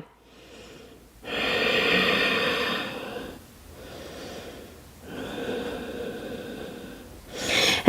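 A person breathing deeply and audibly while holding a yoga twist: a long, loud breath about a second in, a softer one, another long breath, and a short quick intake near the end.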